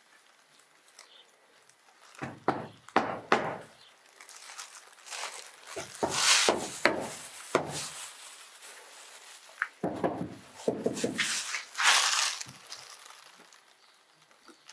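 Scattered knocks, scuffs and rustling noises in several short clusters, with quieter stretches between.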